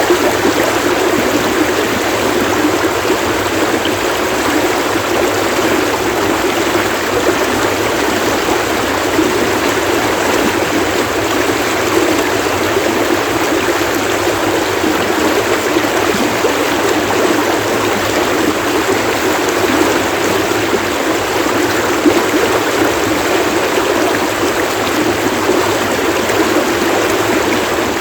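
Stream water splashing and rushing steadily.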